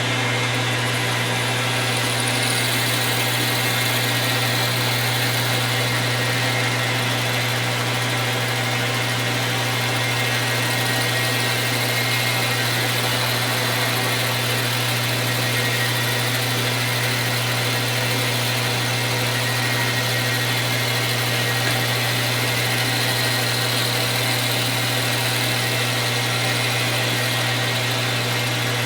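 King Industrial 10x22 metal lathe running at a low spindle speed, a loud, steady motor and belt-drive hum that holds unchanged throughout.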